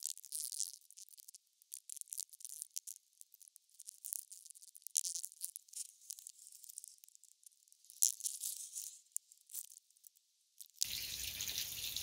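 Scattered, faint scraping and crunching of loose stones and soil being shifted by hand to lay a footpath. About eleven seconds in, this gives way to the steady splash of water pouring from the overflow of a spring-fed collection drum.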